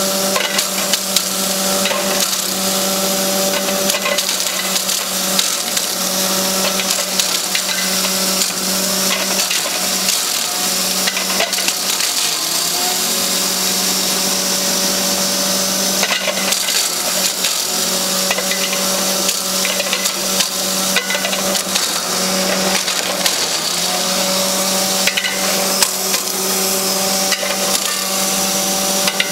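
A 3 HP double-chamber electric masala grinder (pulverizer) running under load while it grinds whole dried turmeric roots into powder: a steady motor hum under a dense crackle of the hard roots being crushed.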